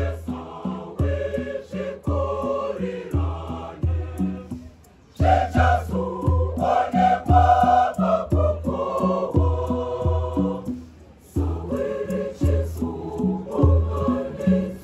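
A large mixed choir of women's and men's voices singing a church piece in harmony over a regular low beat. The singing breaks off briefly twice between phrases.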